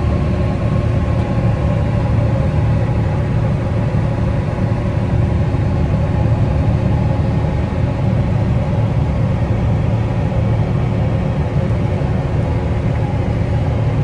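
Tractor engine running steadily under load, driving a PTO-powered rotary cutter (bush hog) through grass, heard from inside the cab: a steady deep rumble with a few constant tones over it.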